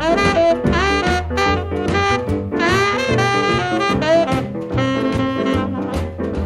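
Jazz music led by saxophone and brass, with sustained melodic notes over a steady bass line.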